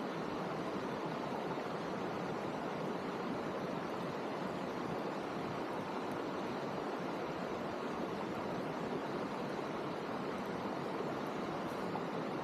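Steady hiss of heavy rain falling, even and unbroken, with a few faint ticks near the end.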